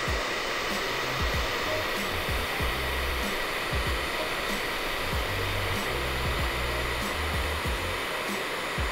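Handheld blow dryer running steadily on its cool setting: an even rush of air with a steady whine through it.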